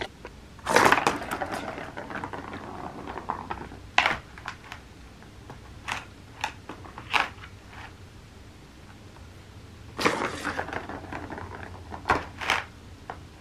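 Plastic ball rolling and rattling around a plastic Turbo Track cat toy as a cat bats it, with sharp plastic clicks and knocks. There are two longer rolling runs, about a second in and about ten seconds in, with single clicks between them.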